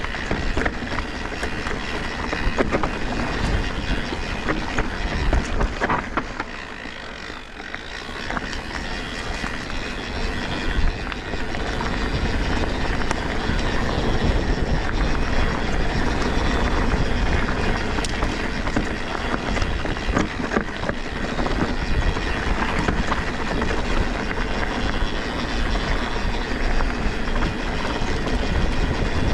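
Mountain bike ridden downhill on a dirt trail: a steady rush of wind on the microphone and tyre noise, with scattered knocks and rattles from the bike over the ground. The noise dips quieter for a couple of seconds about a quarter of the way through.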